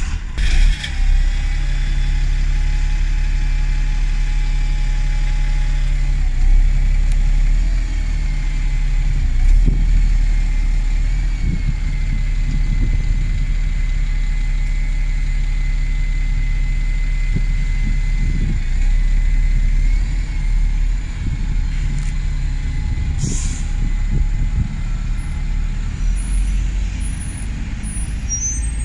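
Diesel buses idling close by: a steady engine rumble with a high whine over it, and a short hiss of air, like an air-brake release, about three-quarters of the way through.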